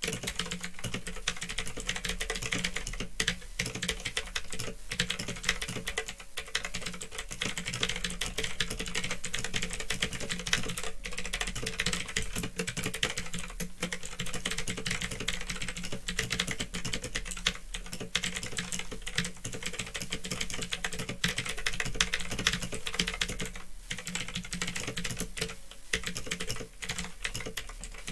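Continuous fast typing on a mechanical keyboard with clicky Otemu Blue switches: a dense clatter of keystrokes, with a steady low hum underneath.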